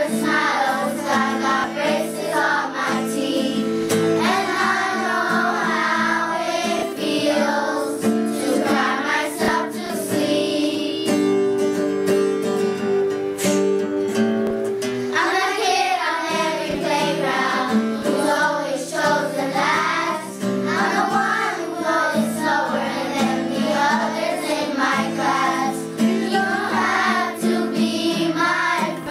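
A group of children singing a song in unison with a woman, accompanied by an acoustic guitar.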